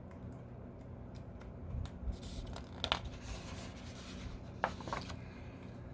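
Paper rustling with a few soft clicks and taps: the pages of a picture book being handled and turned.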